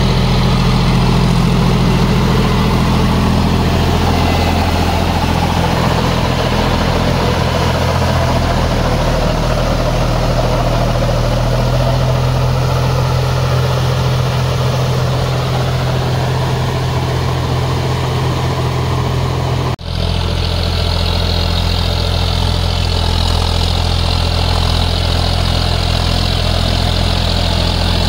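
John Deere 5050D tractor's three-cylinder diesel engine running steadily while driving a rotavator through deep mud. The sound cuts out for an instant about twenty seconds in.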